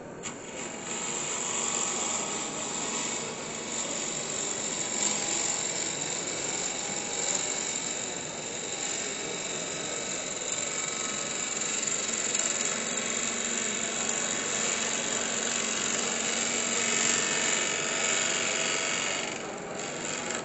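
A turning tool cutting into a spinning wooden blank on a wood lathe: a steady rasping hiss of shavings tearing off over the lathe's running motor. The cut starts just after the beginning and eases off near the end.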